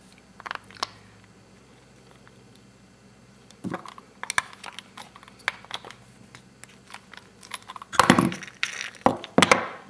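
Scattered clicks and knocks of a small metal nut driver and wooden parts being handled while a wooden wheel is screwed onto a wooden toy cannon's axle. A louder cluster of knocks comes about eight seconds in, with a few more near the end.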